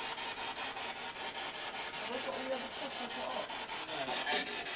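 Spirit box radio sweeping through stations: rapid, evenly spaced bursts of static, with faint snatches of voice-like sound.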